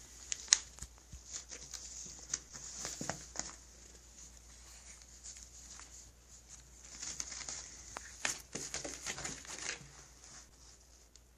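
A cat batting at and pouncing on a toy mouse: irregular light taps, scuffs and scrabbling on the floor, coming in flurries, the busiest one near the end.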